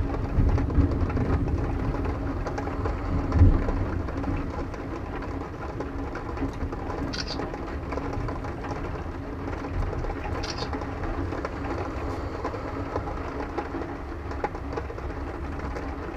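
Low thunder rumbling and slowly dying away over a steady hiss of rain, with a last swell about three seconds in.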